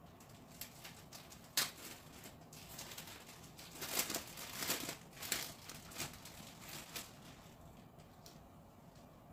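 Clear plastic packaging on folded clothes crinkling and rustling as it is handled, in a run of short crackles with one sharp click about a second and a half in, busiest between about four and five and a half seconds in.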